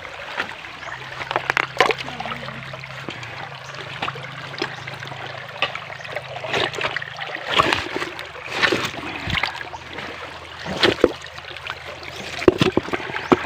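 Creek water trickling, with irregular splashes and scrapes as a hand digs through mud and stones in the shallow water, searching for crabs.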